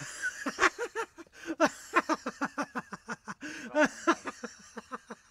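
A human voice in a quick run of short, pitched syllables, several a second.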